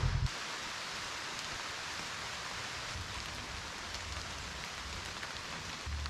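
Rain dripping and pattering on the leaves of the woods, a steady soft hiss with a few separate drop ticks. A low rumble cuts off just after the start.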